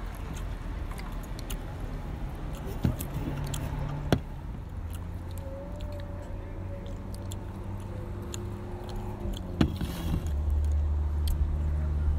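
A car engine running nearby: a low steady hum that grows louder about ten seconds in, with a few sharp clicks over it.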